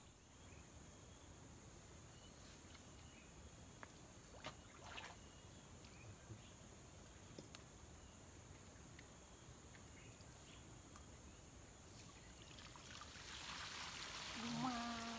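Faint ambience: a steady high-pitched insect drone with a few soft ticks, the drone stopping about three quarters of the way through, then a louder hiss building near the end.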